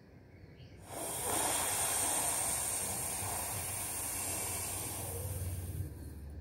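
A long hissing in-breath drawn through a tongue rolled into a tube, as in sheetali pranayama. It starts about a second in, lasts about five seconds and eases off near the end.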